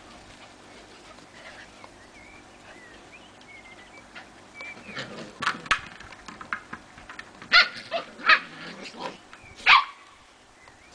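Eight-week-old Samoyed puppies barking and yapping in play, a run of short, sharp, high barks starting about halfway through, the loudest few near the end.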